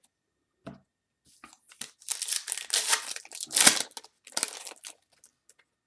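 Foil wrapper of a Topps Chrome trading-card pack being torn open and crinkled by hand. The rustling comes in a run of tearing and crackling from about two seconds in, loudest near the middle, and stops a little before the end.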